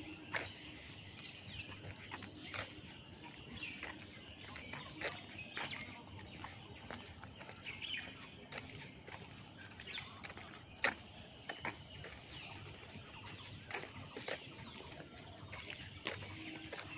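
Steady high-pitched insect chorus, typical of crickets, with scattered short chirps and clicks over it.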